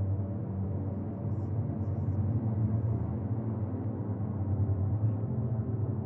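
Low, steady ambient drone music: a sustained deep pad with several held low tones and no beat.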